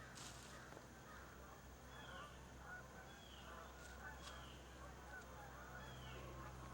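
Faint bird calls, short and repeated about once a second, over a low steady hum.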